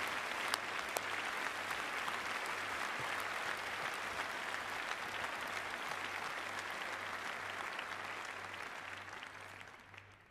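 A large audience applauding in a packed hall, the clapping dying away near the end.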